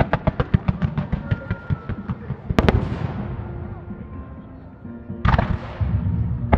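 Starmine fireworks: a fast string of sharp shell reports, about seven a second, for some two seconds, then one loud burst that rolls away, and another burst about five seconds in, over background music.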